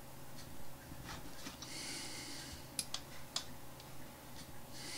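A few faint, sharp computer mouse clicks over a low steady hum, with a soft breath near the microphone about two seconds in.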